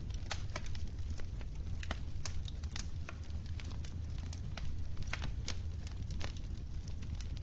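Wood fire crackling in a fireplace: frequent sharp, irregular pops and snaps over a steady low rumble of the burning.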